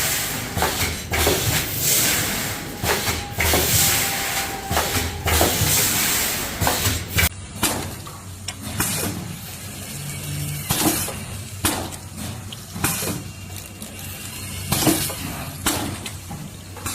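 Packing machinery running: a steady hiss with fast mechanical clatter for about seven seconds, then an abrupt change to quieter, separate clacks and knocks.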